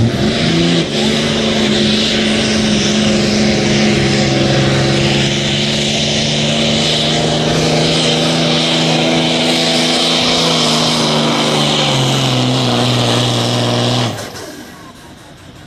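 Diesel engine of a Dodge Ram pickup held at full throttle while pulling a sled: a loud, steady drone that climbs in pitch in the first second, holds, drops lower near the end, and cuts off suddenly as the driver lets off.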